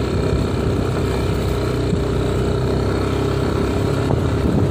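Yamaha NMAX scooter's engine running steadily while riding up a rough dirt track.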